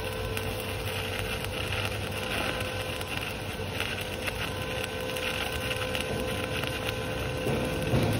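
Stick-welding (SMAW) arc on a 2.6 mm LB52-18 low-hydrogen electrode at about 100–120 A, crackling steadily as it lays a vertical 3G fill pass.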